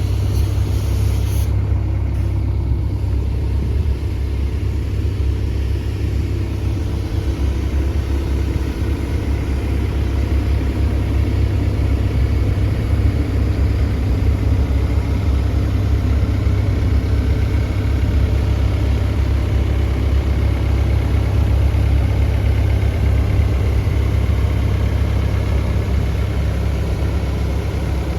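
Hitachi ZX85USB-6 excavator's diesel engine running steadily at idle, a constant low drone.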